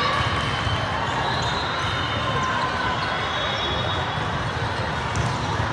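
Busy volleyball tournament hall: volleyballs bouncing and thudding on the court floors, over a steady background of many voices.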